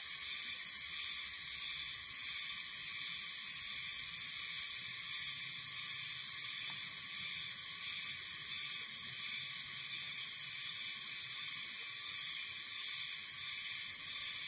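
Steady high-pitched chorus of forest insects, an even buzzing hiss that never pauses.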